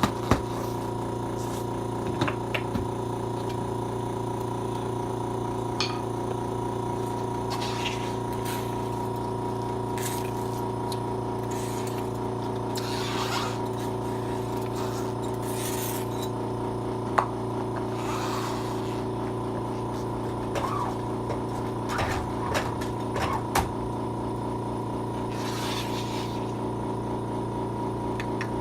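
A machine hums steadily on one unchanging pitch. Short hisses of air break in now and then, along with a few sharp clicks and knocks.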